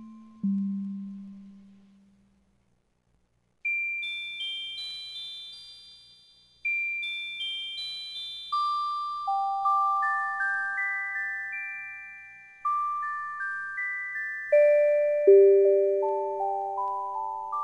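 Background music: a slow music-box melody of single notes that ring and fade. It goes quiet for a moment a few seconds in, then comes back high and steps down to lower notes toward the end.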